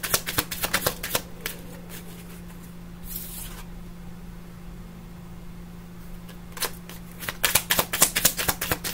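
A tarot deck being shuffled by hand, a rapid run of card flicks. The flicking stops after about a second, there is a brief rustle about three seconds in, and the shuffling starts again near the end.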